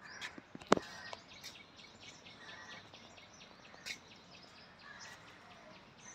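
Outdoor ambience with small birds chirping, a quick series of short high notes repeating about four times a second. A sharp click comes just under a second in, and another near four seconds.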